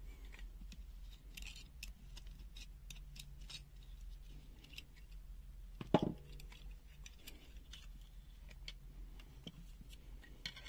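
Small scattered clicks and taps of a multimeter's plastic case and circuit board being handled during disassembly, with one louder plastic knock about six seconds in.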